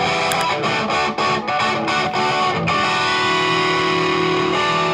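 Electric guitar played through a Toadworks Mr. Squishy compressor pedal that is switched on. Quick, even chord strokes come at about four a second, then from about two and a half seconds in one chord is left to sustain evenly.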